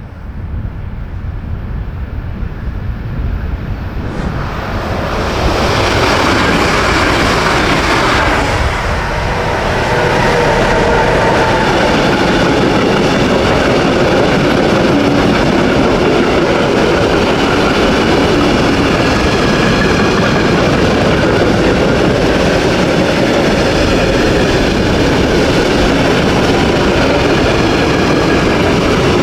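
Heavy ore train hauled by two DB Class 152 electric locomotives approaching and passing. The sound builds over the first several seconds, then the loaded ore wagons roll past at a steady loud level.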